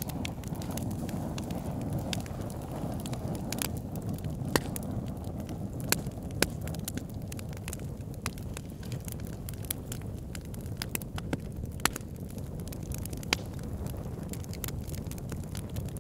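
Fireplace fire crackling: a steady low rush with irregular sharp pops and snaps, a handful of them louder than the rest.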